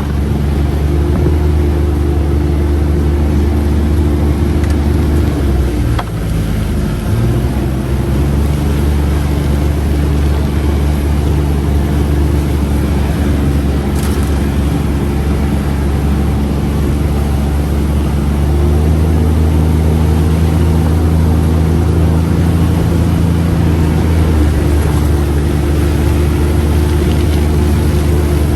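Four-seat UTV engine running steadily while driving; its pitch dips and climbs back about six seconds in, then rises a step around nineteen seconds as it speeds up.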